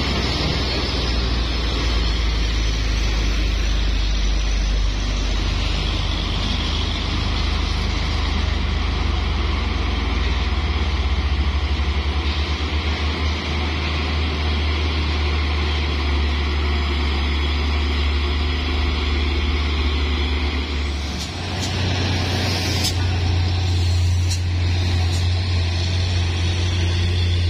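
Diesel engines of heavy trucks, Hino trucks among them, pulling up a steep grade: a deep, steady drone that shifts pitch about three-quarters of the way through as another truck comes up, with a few brief hisses near the end.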